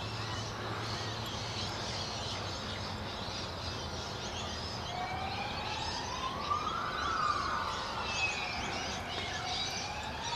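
A siren wailing, its pitch slowly rising and falling in an unbroken cycle of about five seconds, starting about halfway through. Birds chirp throughout.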